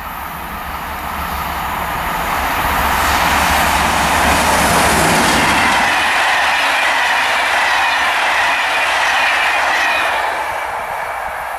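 Freight train passing close by on an electrified main line. The sound swells to its loudest about four to five seconds in with a falling pitch as the head of the train goes by. Covered sliding-hood wagons then roll past with steady wheel-on-rail noise and a thin high whine that slowly sinks in pitch.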